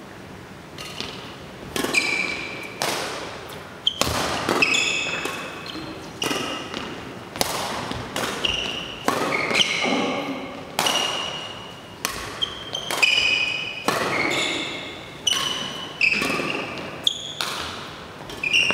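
Doubles badminton rally: racket strings striking the shuttlecock about once a second, each hit sharp with a short ringing note that fades in the hall's echo.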